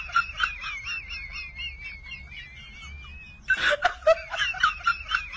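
A high-pitched, warbling, cackling laugh sound effect, looped: the same laugh starts over about three and a half seconds in.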